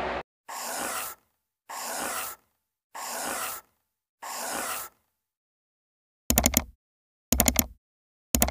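Outro animation sound effects: four soft whooshes about a second apart, then three short bursts of rapid clicks, a cartoon hand clicking a subscribe button.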